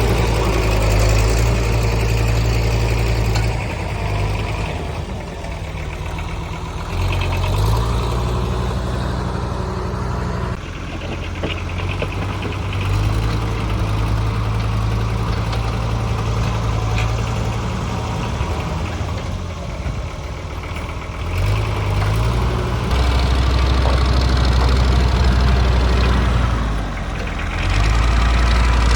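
Kubota tractor's diesel engine running, its low hum rising and falling in level as the load on it changes, with an abrupt shift about a third of the way in.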